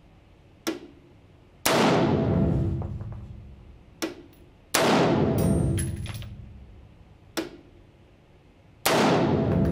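Schmeisser AR-15 M5F semi-automatic rifle firing .223 Remington rounds one at a time: three shots about three seconds apart, each ringing out in a long echo in an indoor range. Fainter short cracks fall between the shots.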